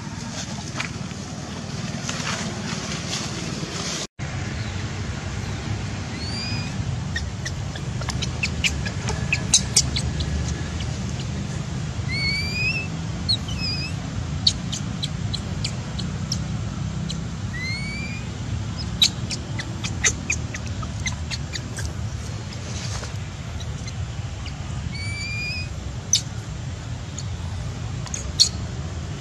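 Infant macaque giving short, high, rising squeaks every few seconds, with scattered sharp clicks over a low steady rumble.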